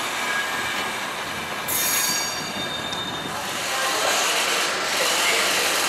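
České dráhy passenger coaches rolling slowly over the station tracks, their wheels squealing on the rails with thin high tones. The squeal fades about three and a half seconds in, leaving a steady rumbling hiss.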